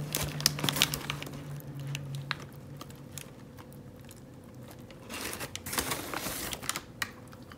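Paper microwave-popcorn bag crinkling as it is pulled open, then rustling again as a hand digs through the popcorn inside: two bursts of rustling, the second about five seconds after the first.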